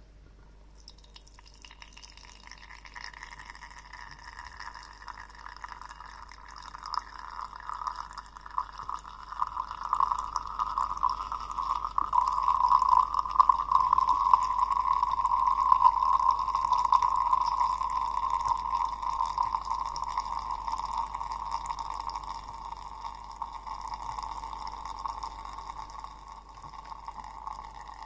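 A stream of liquid pouring into a vessel, building up over the first several seconds, loudest about halfway through, then slowly tapering off.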